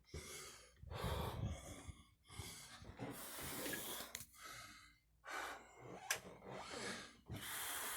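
A person breathing close to the microphone, a series of audible breaths in and out.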